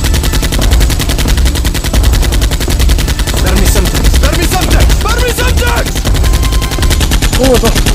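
Rapid, unbroken machine-gun fire sound effects, with short shouting voices over the shooting now and then.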